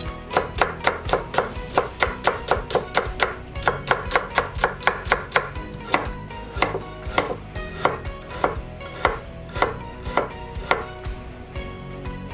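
Chef's knife chopping on a wooden cutting board: a fast run of sharp strikes, about three or four a second, cutting Korean radish into chunks, then slower, more spaced strokes slicing ginger thinly.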